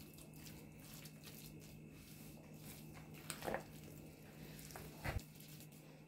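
A utensil stirring mayonnaise-coated potato salad in a plastic bowl: faint squishing and scraping, with two brief louder knocks or squelches about three and a half and five seconds in, over a faint steady hum.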